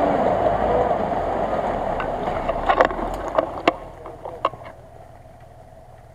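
Mitsubishi L200 pickup's engine running as it churns through deep mud, tyres splashing, fading as it drives away. A few sharp knocks in the middle.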